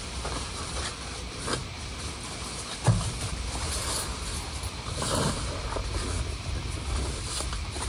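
Wind rumbling on the microphone, with a few short knocks and one sharp thump about three seconds in, then a rustle.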